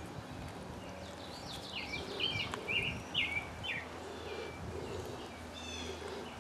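Small songbirds chirping, a string of short bending notes through the middle and a quick higher trill near the end, over a low steady background hum.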